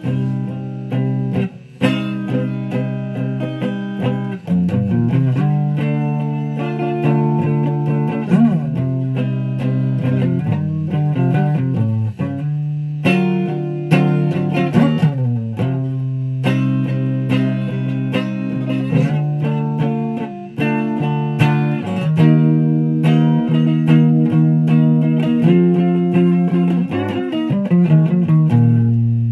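Guitar being played: picked notes and chords ringing into one another, changing every second or so, with a few bent notes.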